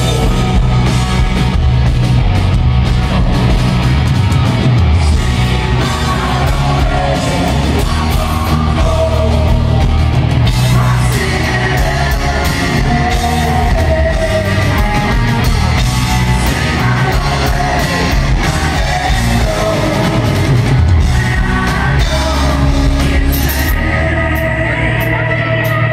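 Live rock band playing, with a male lead vocal singing over it through the PA.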